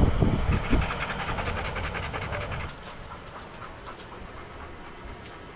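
A retriever panting fast and rhythmically right at the microphone, stopping abruptly a little over two and a half seconds in, with a few dull knocks at the start.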